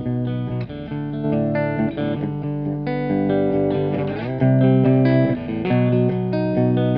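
Electric guitar playing sustained chords through a bucket-brigade analog chorus pedal, with a light overdrive from a Boss BD-2. The chords change about every second, with a sliding change about four seconds in, after which it gets louder.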